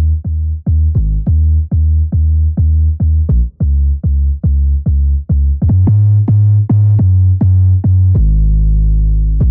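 Synth bass from the Monster DAW bass plugin's Centaur Bass preset, played as short repeated notes about three a second, each starting with a quick downward pitch drop, with the pitch stepping to new notes twice. Near the end it settles into one long held bass note.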